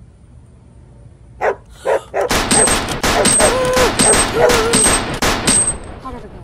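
Battery-powered toy machine gun playing its electronic rapid-fire sound effect, a fast loud rattle of shots starting about two seconds in and stopping near the end, with a short high beep repeating under it. A boy screams over the shooting, and two sharp bangs come just before it starts.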